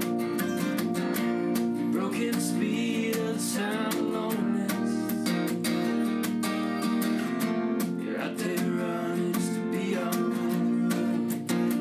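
Acoustic guitar strumming a steady rhythm in a folk song's instrumental passage, with a bending melody line played over it twice.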